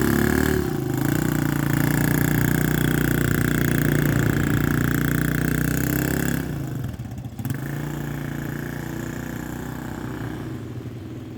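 Small ATV engine running steadily under throttle. About six and a half seconds in it briefly drops off, then runs on at a lower, steady pitch.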